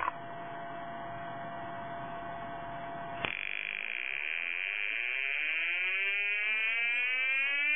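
A small loudspeaker driven by a simple one-transistor audio oscillator, the transistor deliberately connected the wrong way round. First a hissy buzz with a faint steady tone, then a click a little over three seconds in, after which a buzzing tone rises in pitch and levels off near the end.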